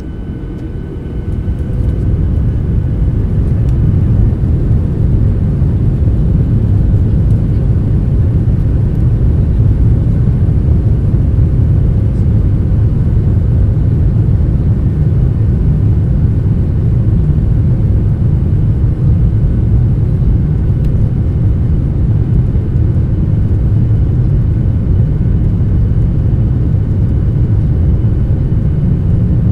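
Passenger airliner cabin noise: the engines and airframe rumble grow louder over the first few seconds, then hold a loud, steady low rumble.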